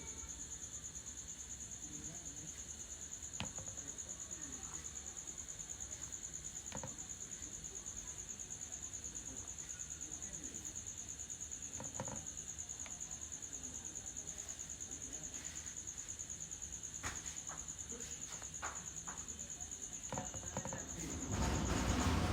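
A steady, high-pitched insect trill that pulses rapidly, with scattered light clicks and a louder rustling burst near the end.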